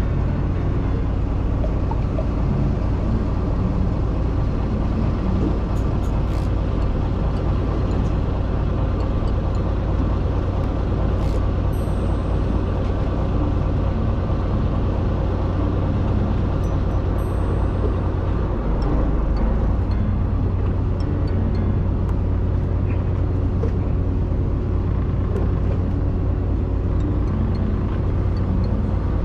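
Fishing boat's engine running steadily, a constant low hum heard from the deck.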